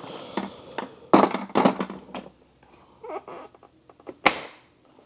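Hard plastic parts of a floor-washer vacuum being handled: rustling, knocks and clicks, with one sharp snap a little after four seconds in.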